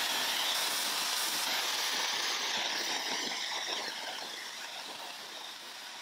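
Dyson Supersonic hair dryer blowing on its highest heat and airflow settings onto wet hair: a steady, airy hiss that slowly grows quieter.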